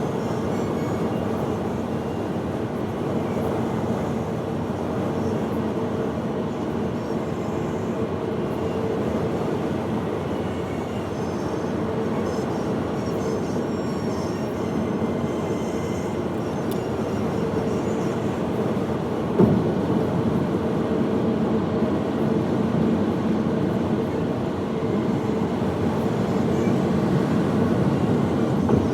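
Steady rumble of a moving vehicle heard from inside, with a steady low hum and a single knock about twenty seconds in.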